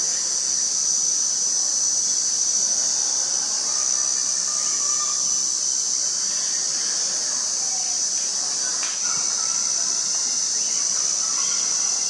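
Steady, high-pitched drone of an insect chorus, with a single faint tap about nine seconds in.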